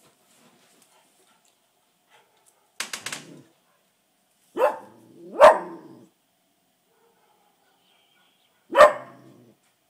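A small spaniel barking at someone passing outside the window: four sharp barks spaced apart, two close together a little past the middle and one near the end.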